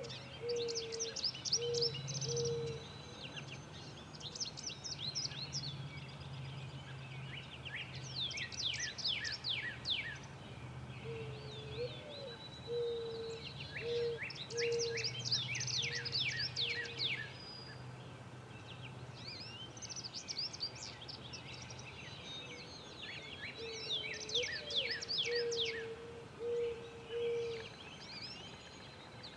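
Wild birds calling: bouts of quick, sharp, high chirps come and go throughout, and a low call of four or five short notes, the first one rising, repeats three times about every twelve seconds. A faint low hum runs underneath for the first half.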